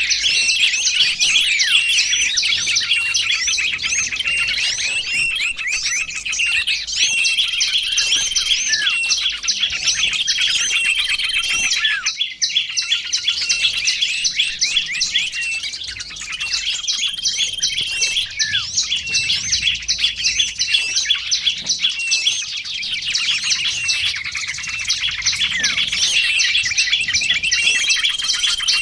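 A dense chorus of many small songbirds twittering at once: rapid, high, overlapping chirps and short trills, with a brief lull about twelve seconds in.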